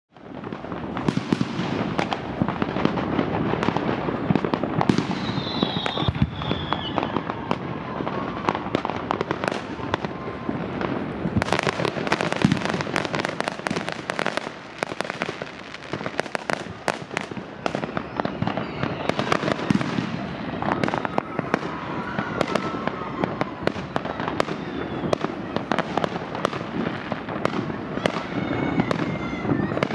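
Dense, continuous fireworks barrage: many bangs and crackling reports in quick succession over a steady rumble, with a few short whistles among them. It fades in at the start.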